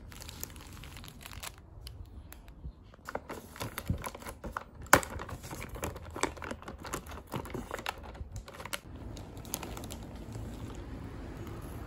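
Plastic shrink wrap and packaging crinkling under handling fingers, with a run of quick sharp clicks and crackles from about three to nine seconds in, the loudest about five seconds in.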